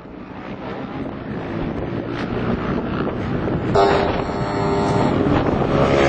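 Pit-lane ambience of racing motorcycle engines with wind on the microphone, fading up. About four seconds in, one engine's note comes through loud and clear over the general rumble.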